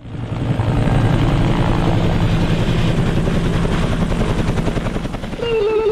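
Helicopter rotor chopping steadily, fading in at the start.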